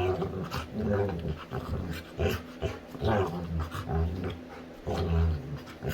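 Labrador retriever making a run of short, low growls and grumbles while playing: play growling, not aggression.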